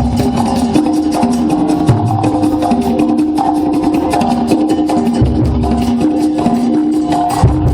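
A band playing a cumbia live: held melody notes over a pulsing bass line, driven by a busy clicking percussion beat.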